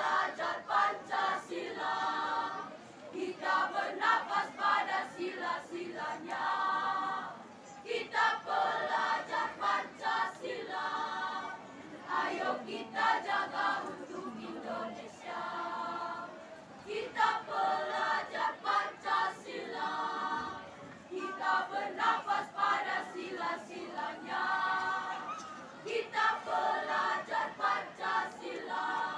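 School choir singing together in short, rhythmic phrases.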